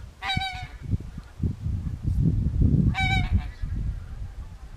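Goose honking: two clear, half-second honks about three seconds apart, over uneven low-pitched noise.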